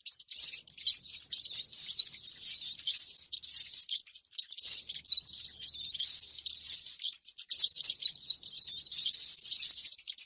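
Rodents squeaking: a dense run of rapid, high-pitched chirps and squeaks, broken off briefly about four and about seven seconds in.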